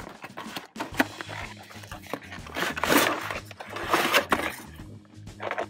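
Cardboard toy box and its packaging being handled as a toy truck is pulled out: irregular rustling and scraping, with a sharp click about a second in and louder rustles around the middle.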